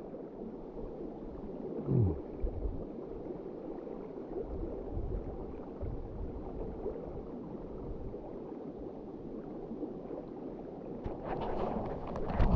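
Steady rush of flowing river water, with irregular low rumbles and a short falling sound about two seconds in; near the end a brighter, splashier noise builds.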